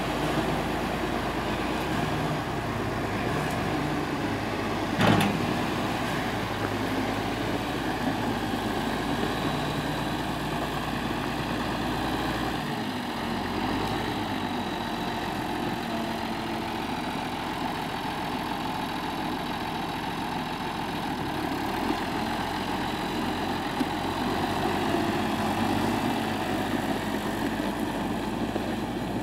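John Deere 4320 tractor's diesel engine running steadily, with one sharp knock about five seconds in.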